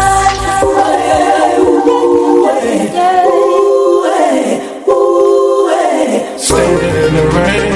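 Music with singing voices; the bass and beat drop out for most of the stretch, leaving the voices nearly alone, and the bass comes back in near the end.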